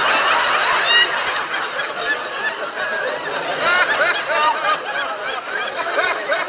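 Studio audience laughing, many voices at once, loudest in the first second or so.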